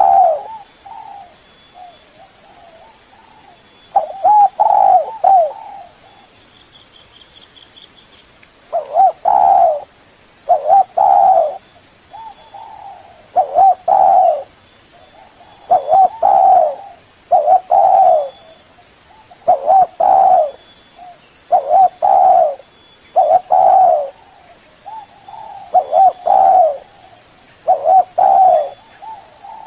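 Spotted dove (tekukur) cooing: loud phrases of a few low coo notes, repeating about every two seconds after a short gap near the start.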